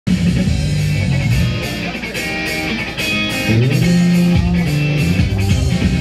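Idol-pop song played loud over a live venue's PA: a band-style track with electric guitar and a bass line that slides up about three and a half seconds in.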